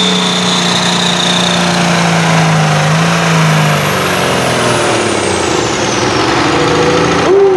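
Ford farm tractor's diesel engine running hard under load, pulling a weight-transfer sled. A high whine falls in pitch about four to six seconds in, and the engine note drops around the same time.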